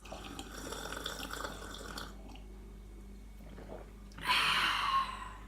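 Steady low room hum, with a short loud hiss lasting about a second, a little after four seconds in.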